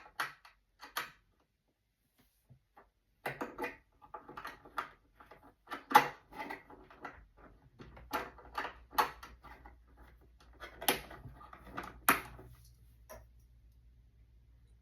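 A run of irregular clicks and knocks of hard parts being handled, the loudest about six seconds in, with a low steady hum that starts about eight seconds in.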